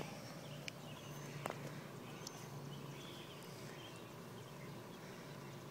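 Faint outdoor background with a few soft taps and scuffs in the first half.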